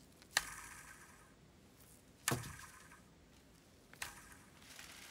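Die-cast metal airplane bank handled by a gloved hand: three sharp knocks about two seconds apart, the first and last with a short metallic ring, the middle one duller and deeper.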